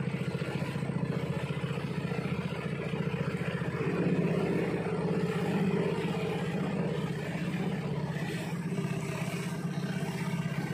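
Small fishing boat's engine running steadily while the boat is underway, with an even throb; it grows a little louder about four seconds in.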